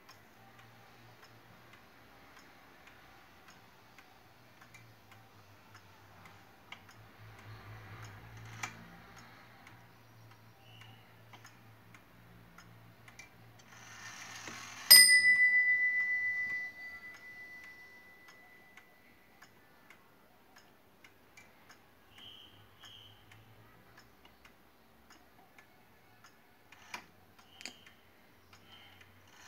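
Ansonia open-frame brass clock movement ticking steadily as its pendulum swings. About halfway through, its hammer strikes the bell once, and the bell rings on for several seconds as it fades.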